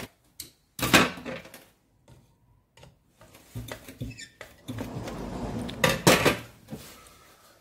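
Hand-tool handling on a room heater's coiled wire element: metal knocks, clicks and scraping as the coil is pressed into the heater bowl. There is a sharp knock about a second in, then a longer stretch of clatter and rubbing near the end.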